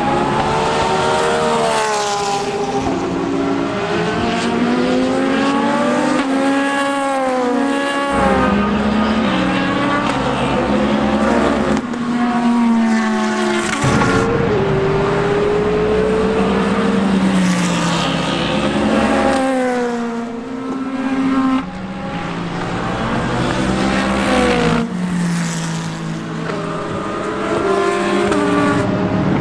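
Several race car engines running on track, one after another and overlapping as cars go by. Their notes rise and fall in pitch with throttle and gear changes.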